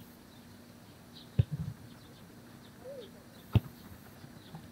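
A football being kicked twice: two sharp thuds about two seconds apart, with faint bird chirps behind.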